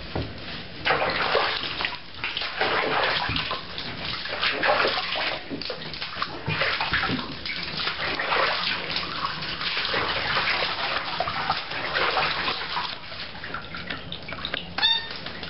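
Water running and splashing in a bathtub as a soapy monkey is washed, an uneven, shifting splashing. A brief high squeak near the end.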